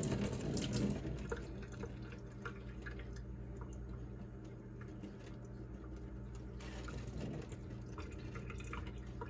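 Water dripping and trickling into a sink from a freshly rinsed vacuum cleaner part, with scattered small drips over a steady low hum. The running water tails off in the first second or so.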